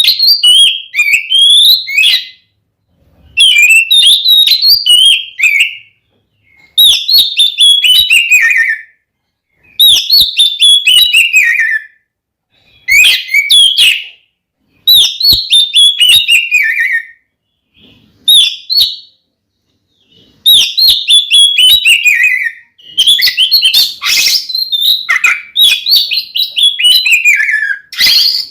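Oriental magpie-robin (kacer) singing a loud, combative territorial song: phrases of shrill whistles and quick falling trills, each two or three seconds long with short pauses between, running on without a break near the end.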